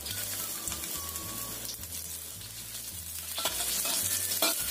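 Sliced shallots sizzling in hot oil in a wok. From about three and a half seconds in, a spatula scrapes and stirs them against the pan in short strokes.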